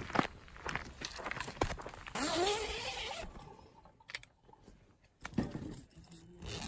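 Footsteps on a dry dirt trail, then a tent's zip rasping and its fabric rustling, with a second rasp near the end.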